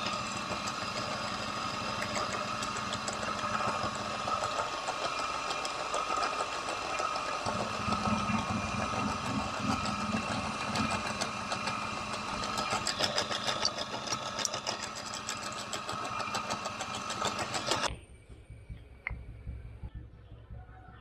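Bench pillar drill press running, its bit drilling into a small wooden mould block. The machine sound stops suddenly near the end, leaving only faint light taps.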